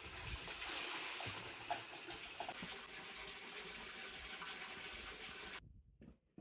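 Water gushing steadily from a pipe outlet and splashing into a full concrete water tank, with a metal kettle being filled in the stream at first. It cuts off suddenly near the end.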